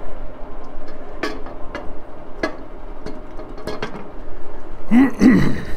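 Scattered light metallic clicks and knocks as the left half of a 1953 Harley-Davidson K model aluminium engine case is handled and lowered over dowel pins onto the right half. Near the end comes a short, low voice sound, rising and falling twice.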